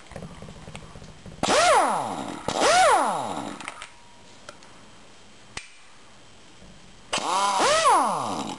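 Stanley half-inch-drive air impact wrench run free three times in short trigger pulls: each time the air motor whines up in pitch with a rush of air, then spins down, falling in pitch. The second pull follows right on the first; the third comes a few seconds later.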